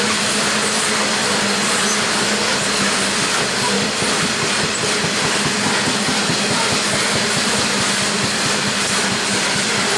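Loaded coal hopper wagons rolling steadily past on steel rails, a continuous rumble of wheels on track, with the steady drone of two Aurizon 5000 class diesel-electric locomotives working ahead of them.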